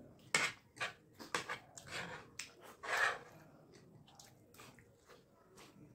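Two people eating yoghurt-soaked chaat: irregular wet clicks and smacks of chewing, with a spoon and fingers working at the plates, busiest in the first three seconds and sparser after.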